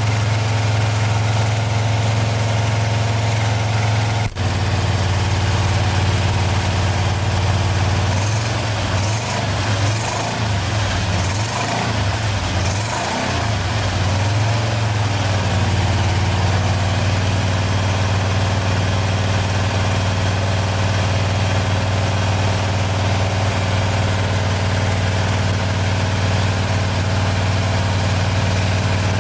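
Pontiac 421 V8, bored and stroked to 462 and fed by a Tri-Power three-carburettor setup, running on an engine stand. It idles steadily, takes a few short revs of the throttle in the middle, then settles back to idle. There is a brief click about four seconds in.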